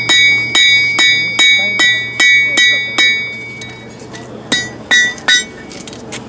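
Hammer striking a steel anvil in a steady rhythm, about two to three blows a second, each blow ringing on. About three seconds in the blows stop, then a few more strikes follow near the end.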